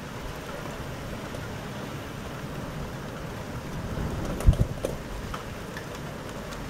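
Steady rain and wind noise of a passing storm, with a brief blast of wind buffeting the microphone about two-thirds of the way through.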